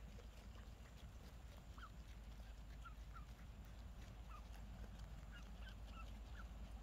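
Mallards giving faint, short peeping calls, scattered from about two seconds in to near the end, over a low steady rumble.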